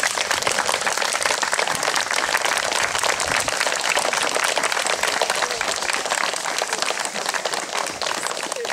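Applause from a crowd: many hands clapping steadily and densely.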